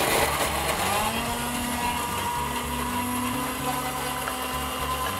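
Cornell countertop blender switched on, its motor starting abruptly and running steadily as it purees a chunky mix of tomatoes, onion, coriander and a little water into a mushy salsa. The motor's whine settles within the first second.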